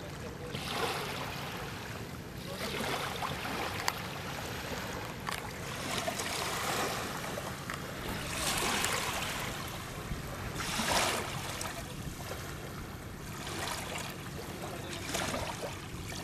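River water sloshing and splashing against a small boat in rushes every few seconds, over a faint low steady hum.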